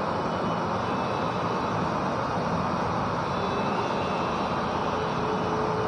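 Steady rushing background noise with no speech, even throughout; a faint steady hum-like tone comes in near the end.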